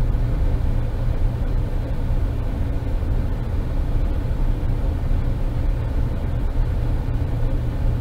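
Steady low drone of running machinery, heaviest in the bass, with a faint steady hum above it: the constant background of a ship's engine room.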